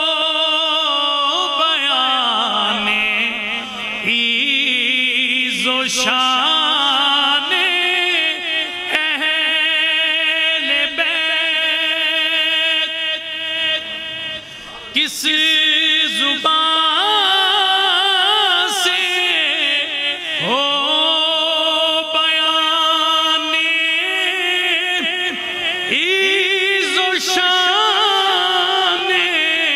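A man singing a devotional Urdu kalam in praise of the Ahl al-Bayt, solo, in long drawn-out notes with wavering melismatic ornaments. There are short breaks about four and fifteen seconds in.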